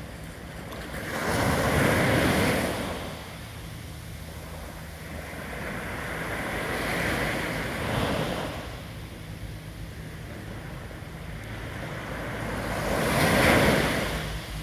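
Small waves on a calm sea breaking and washing up a sandy beach, three times: about a second in, around seven seconds in, and near the end, the last the loudest. A low steady hum runs underneath.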